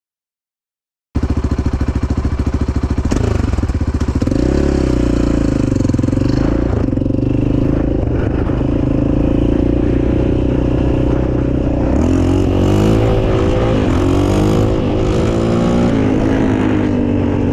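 Yamaha Raptor 700 quad's single-cylinder four-stroke engine running under way, heard from the rider's seat. It starts suddenly about a second in, runs steadily, and its pitch rises and falls several times near the end.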